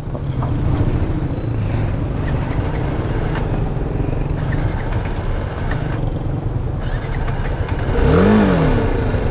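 BMW G310GS single-cylinder engine idling steadily, with a brief rise and fall in engine pitch near the end. It is running again after it would not start, which the rider thinks may be a battery problem.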